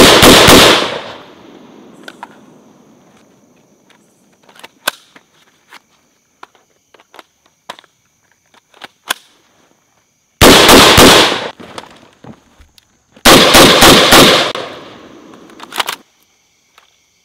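Rifle fired in three rapid bursts of several shots each, with the first burst's report rolling on for about two seconds; the second comes about ten seconds in and a longer burst of about six shots follows shortly after. Faint scattered clicks lie between the bursts, and a short final crack comes near the end.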